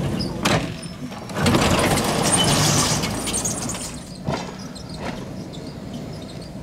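KTM-5 (71-605) tram running on worn track: a single clack about half a second in, a louder stretch of hissing noise around the middle, then quieter running noise with a few single clacks.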